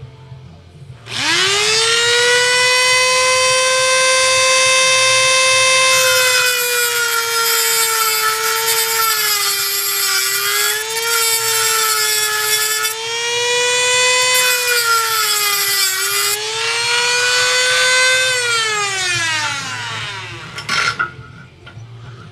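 Handheld rotary tool with an abrasive cut-off wheel spinning up about a second in to a high, steady whine. Its pitch sags several times as the wheel bites into metal. It then winds down with a falling whine, followed by a short clatter.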